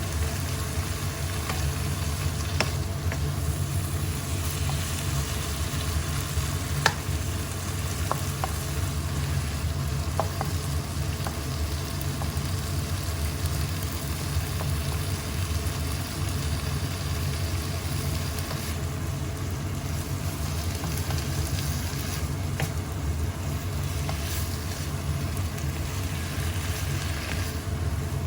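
Asparagus and shrimp paste stir-frying in a pan with a steady sizzle, and a few sharp clicks of a utensil against the pan as it is stirred. A steady low hum runs underneath.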